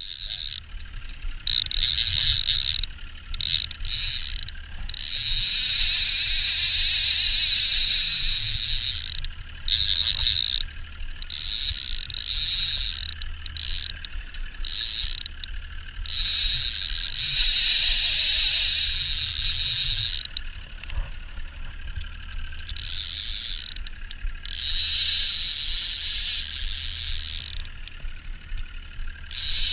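Okuma Magda Pro line-counter trolling reel ratcheting as its spool turns and line is pulled off, in spells of a few seconds that stop and start.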